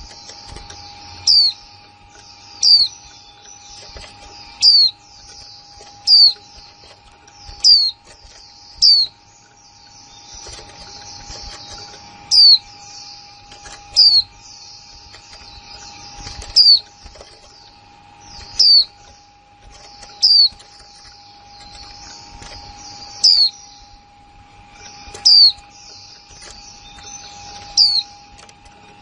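A female white-eye (chim khuyên) repeats its sharp 'kick' call, a short high note sweeping downward, every one to two seconds. Behind it runs a steady high twittering of other small birds.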